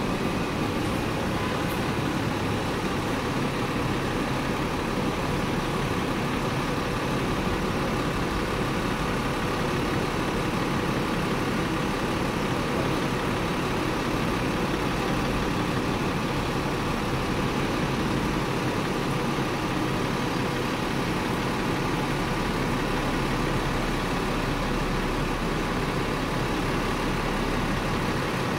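Steady street traffic noise, with the diesel engine of a double-decker bus idling close ahead.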